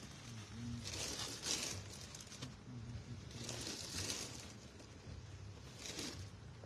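Plastic parcel mailers crinkling faintly in three short bursts as packages are rummaged through in search of one.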